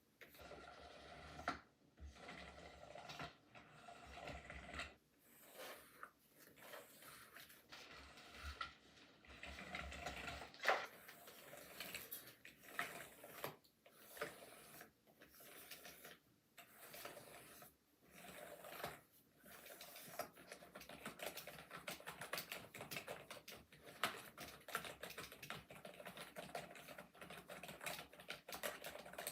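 Computer keyboard keys typed at random in quick clicking runs, broken by short pauses, turning into faster, steadier typing for the last third. The keyboard is a cheap RGB gaming keyboard with raised keys.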